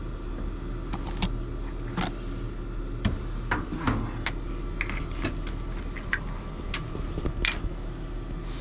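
Scattered light clicks and taps of hands handling tools and parts, about a dozen in all, over a steady low hum.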